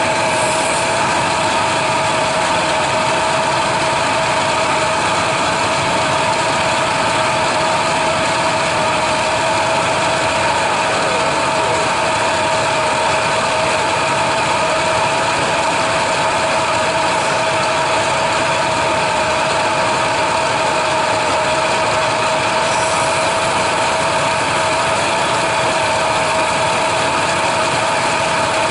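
Chevrolet S-10 pickup engine idling steadily, with a constant even tone over the running noise.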